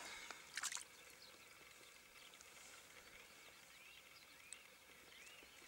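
Quiet outdoor background with a brief splash of water about half a second in. From about two seconds in, a small animal calls with short chirps, each rising then falling in pitch, repeated roughly every two-thirds of a second.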